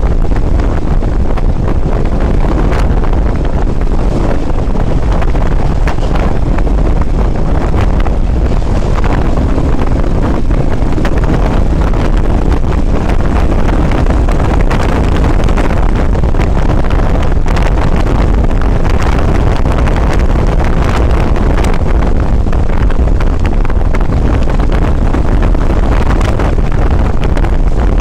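Wind rushing over the microphone on a moving motorcycle, a steady loud low rumble, with the bike's engine running underneath.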